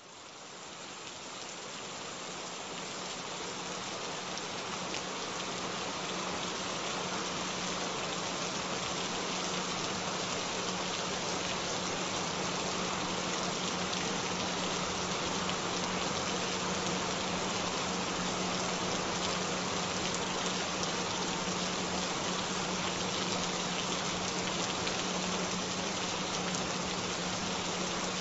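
Steady rain with a continuous low hum-like tone mixed under it, a binaural-beat frequency meant for headphones. It fades in over the first few seconds, then holds even.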